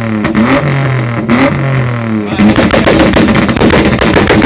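Turbocharged BMW E36 straight-six revving up and down at the tailpipe. About halfway through it switches to a rapid string of sharp exhaust bangs as the anti-lag launch control holds it against the rev limiter.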